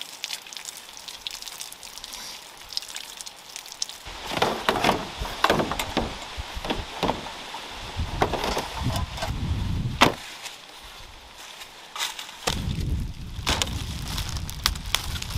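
A faint trickle of water from a jerry can's tap over hands, then a run of knocks and clatter as gear is handled, loudest about ten seconds in. Near the end, the crinkle of a plastic potato bag being opened over a low rumble.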